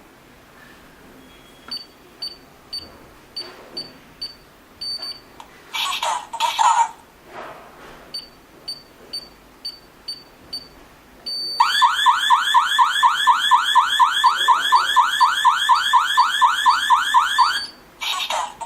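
Alarm control panel with a touch keypad: a run of short high beeps, then its built-in siren sounds loudly in fast rising sweeps, about four a second, for roughly six seconds before stopping.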